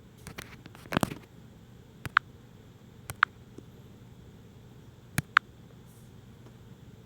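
Faint background noise with a handful of small, sharp clicks or taps: the loudest comes about a second in and a quick pair a little after five seconds.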